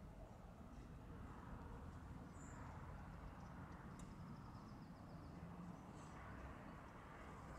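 Faint outdoor ambience: a steady low rumble with a few brief, faint high chirps and a single click about four seconds in.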